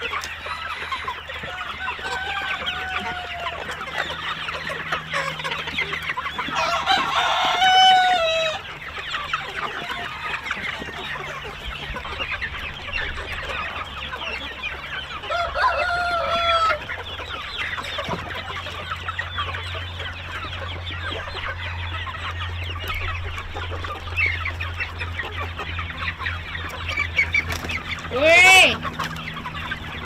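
A flock of chickens clucking and calling continuously, with a rooster crowing three times: about a quarter of the way in, around the middle, and loudest near the end. A steady low hum runs underneath.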